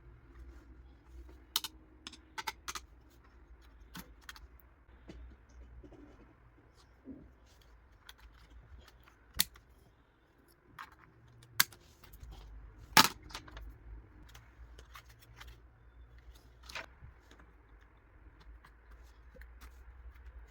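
Scattered sharp clicks and taps, about eight of them, the loudest about thirteen seconds in, over a faint low hum: hands and small tools working on a laptop's plastic case and parts.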